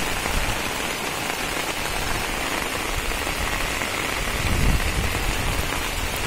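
Heavy rain heard from inside a car: a steady noise of rain falling on the car, with a low rumble swelling about four and a half seconds in.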